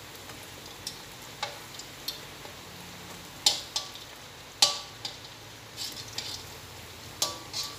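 Glutinous rice cakes (jadah) sizzling in hot oil in a wok as they deep-fry, with a metal slotted spatula clinking against the wok about ten times as it turns them, loudest around the middle.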